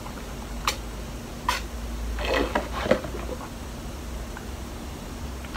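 Drinking through a straw from a small paper drink carton: two sharp mouth clicks a little under a second apart, then a short cluster of sipping and swallowing noises near the middle, over a faint steady hum.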